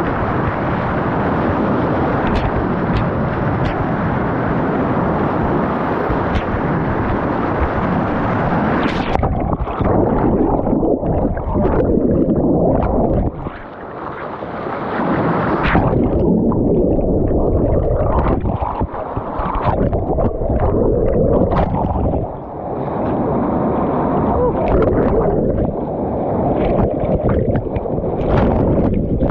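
Whitewater rapids rushing and splashing right at the microphone as a packraft runs through them. The sound turns dull and muffled several times as surging water washes over the microphone.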